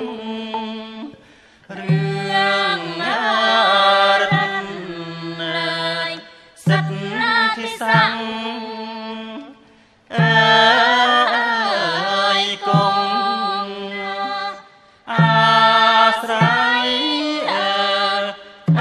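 Cambodian classical court-dance music: a singing voice in four drawn-out phrases with sliding, ornamented pitch, each breaking off briefly before the next.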